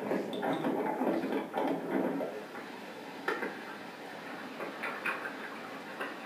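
Guitar music from a video soundtrack, played over a hall's speakers, ending about two seconds in. After it come a few faint scattered clicks and knocks.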